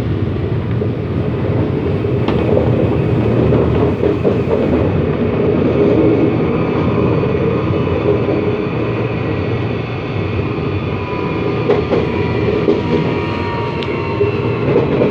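CAF-built CPTM Série 8500 electric multiple unit running, heard from inside a car: a loud, steady rumble of wheels on rail with the traction motors growling hard. Faint whining tones come in over the second half, with a few light clicks from the track.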